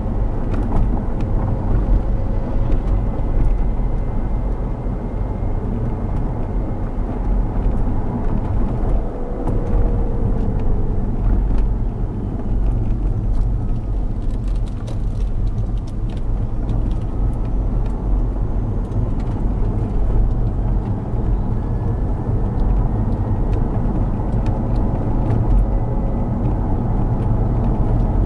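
Inside a moving car's cabin: steady road and drivetrain rumble with scattered short clicks and knocks, thickest about halfway through, from the car's suspension.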